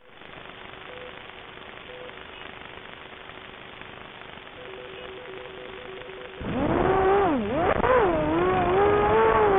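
Hiss with a faint steady tone and short electronic beeps: two about a second apart, then a quick run of beeps. About six seconds in, a racing mini-quadcopter's brushless motors spin up loud, their whine dipping and rising in pitch with the throttle.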